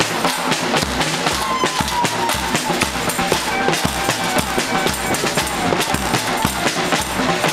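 Protesters drumming and banging percussion in a dense, steady din, with a constant pounding beat underneath.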